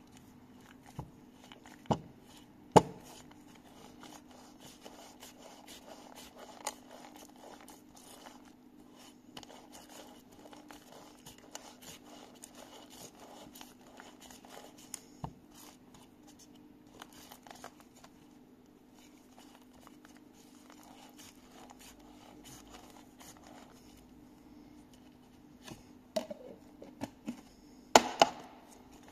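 Gloved fingers pressing grease into the needle rollers of a needle roller bearing: soft rubbing and crinkling of glove and paper. There are a few sharp clicks, two about two to three seconds in and a louder cluster near the end, over a steady low hum.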